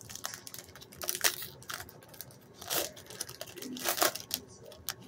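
A hockey card pack's wrapper crinkling and tearing as it is opened by hand, in several short, irregular rustles.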